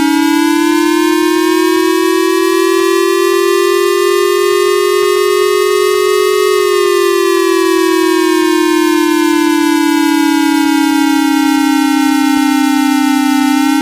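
Electronic siren tone from a mock emergency-alert alarm: one steady buzzy wail that rises slowly in pitch for about six and a half seconds, falls slowly again, then cuts off abruptly.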